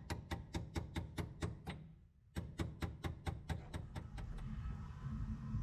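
Evenly spaced mechanical clicks, about four or five a second, in two runs with a short pause between them, over a low rumble.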